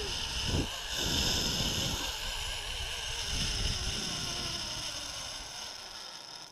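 Zip line trolley running along the steel cable with wind rushing over the helmet camera's microphone: a steady whirring rush that fades gradually as the run nears its end.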